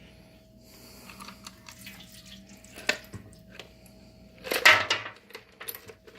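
Liquid sloshing and dripping in a container of nuts and bolts soaking in apple cider vinegar, with small clicks and a louder splash about four and a half seconds in.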